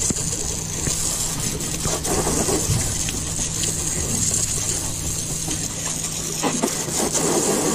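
A boat washdown hose's pistol-grip spray nozzle hissing steadily as it sprays water over the fibreglass gunwale, starting about half a second in. A steady low motor hum runs underneath.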